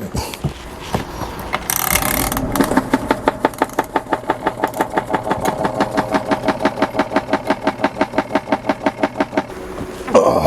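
Small portable electric washing machine running its spin cycle, the motor whirring with an even pulsing about six times a second as the basket of wrung-out clothes spins. It starts with a short rush of noise about two seconds in and stops near the end.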